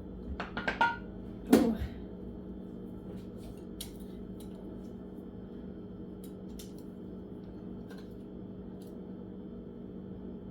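Kitchenware being handled: a few light clinks, then one louder clink with a short ring about a second and a half in. After that only a steady low hum with occasional faint ticks.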